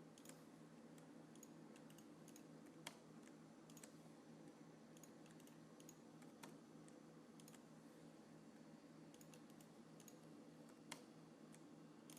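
Near silence, with faint scattered computer mouse clicks (two sharper ones, about three seconds in and near the end) over a low steady hum.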